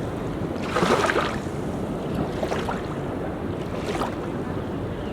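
Sea waves washing onto a beach, over a steady rumble of wind on the microphone; a wave splashes about a second in and another near four seconds.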